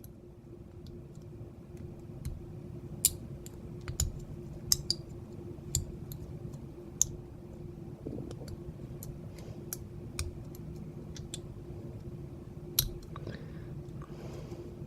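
Irregular small metal clicks and scrapes of a lock pick working the pin stacks of a large vintage Corbin padlock with an Abus keyway, held under tension while it is picked, over a faint steady hum.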